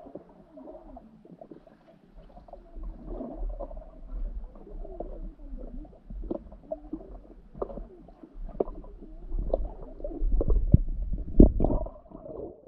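Underwater sound of a swimming pool picked up by a submerged action camera: muffled gurgling and wavering bubbling with scattered clicks. A low rumble builds and gets loudest in the last few seconds as a swimmer moves through the water above the camera, with one sharp knock about a second before the end.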